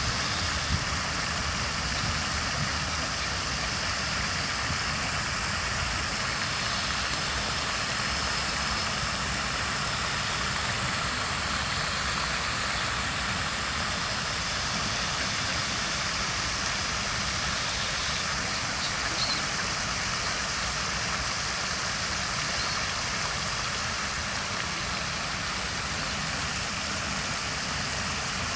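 Steady rushing hiss of pond fountains spraying water and splashing back onto the pond, with a low rumble underneath.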